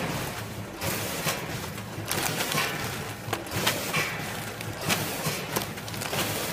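Vertical form-fill-seal bag packing machine running with a steady hum, broken by repeated sharp clacks and knocks from its mechanism at uneven intervals.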